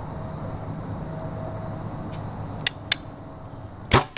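A bow fired: the string snaps sharply as the arrow is released, near the end, the loudest sound here. About a second before it come two sharp clicks.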